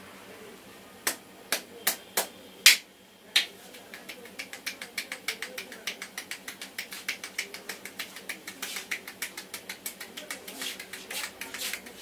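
Percussive head massage: hands striking the head and scalp, first a few single sharp slaps, then a fast, even run of taps, about five a second.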